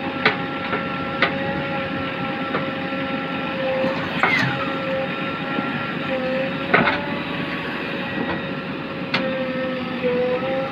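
A JCB backhoe loader's diesel engine and hydraulics run steadily with a constant whine. Several sharp metallic clanks, typical of the bucket and arm knocking, stand out over it, the loudest about two-thirds of the way through, with a short falling squeal a little before the middle.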